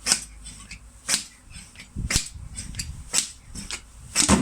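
Sharp knocks on a motorcycle fork's parts, five of them about a second apart, as a part is worked loose inside the fork tube.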